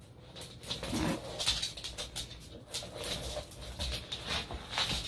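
Irregular plastic clicking and rattling from an expanding toy sphere as a cat tangles in it and it collapses and is dragged across a wooden floor.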